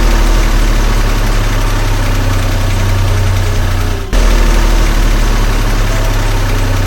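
An engine running steadily with a heavy low hum, cutting out for a moment about four seconds in and then carrying on.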